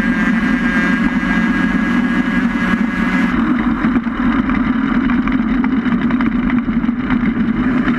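Engine of a small racing vehicle running steadily at speed, picked up by an onboard camera, with a constant engine note and road and wind noise mixed in.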